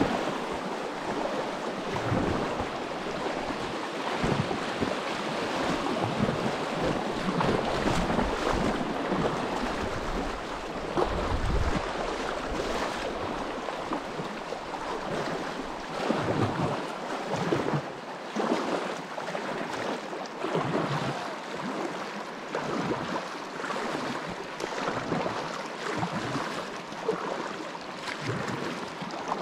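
Kayak paddle strokes splashing water, repeated every second or two, over the wash of the moving creek, with wind rumbling on the microphone at times.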